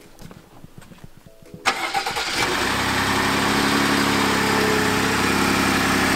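Ford F-150 pickup truck's engine starting: it fires suddenly about a second and a half in, flares briefly, then settles into a steady idle.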